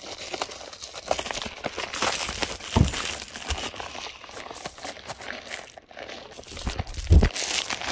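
A thin plastic poly mailer crinkling and rustling as it is handled and pulled open by hand, with two dull thumps, about three seconds in and near the end.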